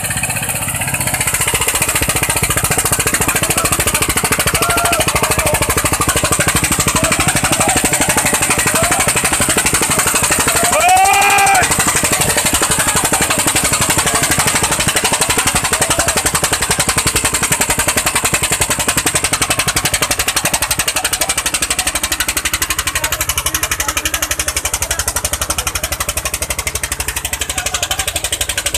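Eicher 241 tractor's single-cylinder diesel engine running hard under heavy load, hauling a fully loaded trolley, heard close as a fast, steady stream of exhaust knocks.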